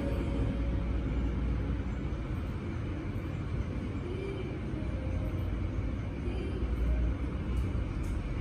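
Steady low rumbling background noise, as of an outdoor recording, with no clear individual events.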